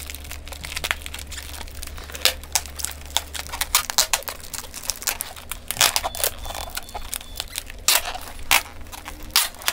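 Brown plastic packing tape pulled off its roll in short rasping rips and wound around a bundle of bubble wrap, the plastic wrap crinkling and crackling under the hands.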